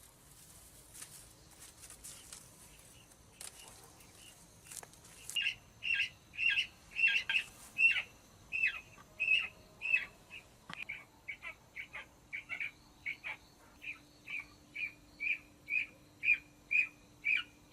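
A bird calling over and over in short, sharp, high calls, about two a second, starting about five seconds in, after faint rustling and tapping.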